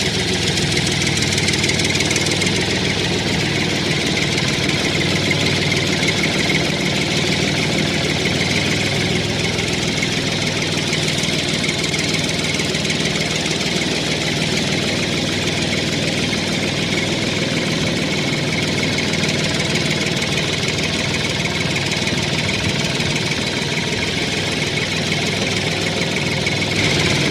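Tractor engine sound effect running steadily at an even idle-like pace, without revving or stopping.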